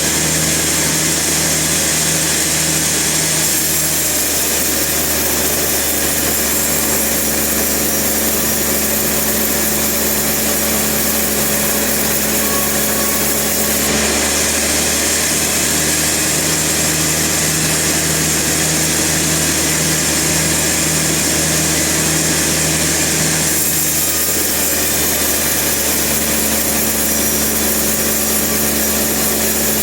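Sawmill machinery running steadily, with a saw cutting through timber. The high hiss changes abruptly three times.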